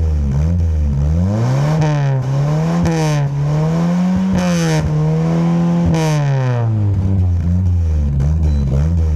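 Engine with an aftermarket racing exhaust being revved, the pitch rising and falling with repeated throttle blips, held high for a moment mid-way, then dropping back to a low idle near the end.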